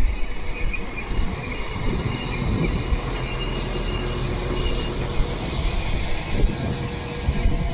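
Class 195 diesel multiple unit running at the platform, a steady low engine rumble, with thin high squeals from its brakes as it draws in.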